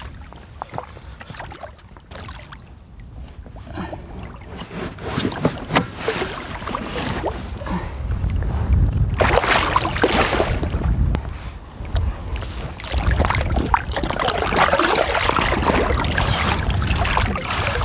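Water splashing and sloshing against a small inflatable boat as a large wels catfish thrashes at the surface while it is gripped by the jaw and landed by hand. The splashing gets louder about halfway through, over a low rumble of wind on the microphone.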